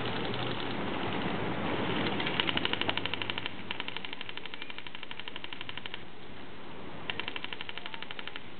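Airsoft gun firing on full auto: a burst of rapid, evenly spaced shots, about ten a second, lasting about four seconds and starting about two seconds in, then a second burst near the end.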